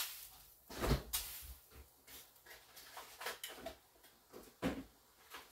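A few scattered knocks and clunks of kitchen things being handled, the loudest about a second in with a dull thud.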